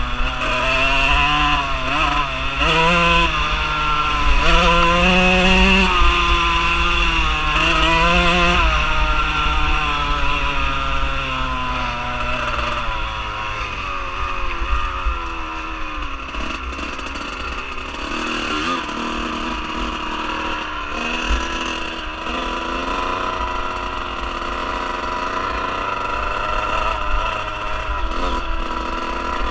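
Dirt bike engine under way, its note rising and falling with throttle and gear changes for the first dozen seconds or so, then running steadier at lower revs. Wind rumbles on the microphone.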